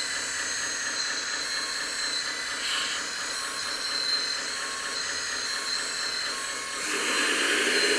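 Metal 1/14 scale RC hydraulic wheel loader running: its electric hydraulic pump whines steadily as the hydraulic steering is worked, over the loader's simulated diesel engine sound from its sound module. The whine grows louder about seven seconds in.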